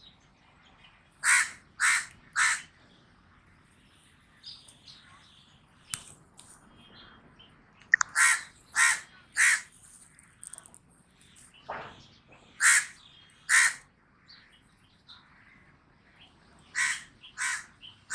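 Common raven calling: short, harsh caws in runs of two or three about half a second apart, with fainter calls in between.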